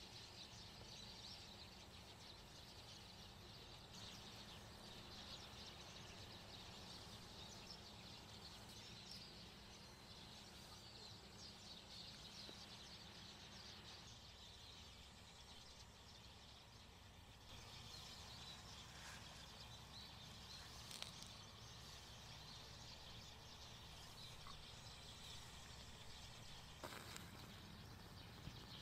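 Near silence: faint outdoor ambience with small birds chirping and a low steady rumble, broken by two light clicks, one about three-quarters of the way through and one near the end.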